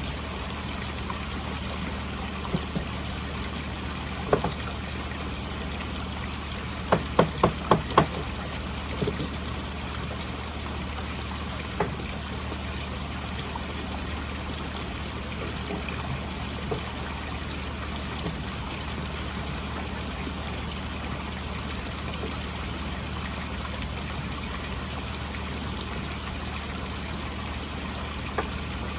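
Koi pond water running and trickling steadily, with a few sharp knocks: a single one, then a quick run of five about seven seconds in, then a couple more.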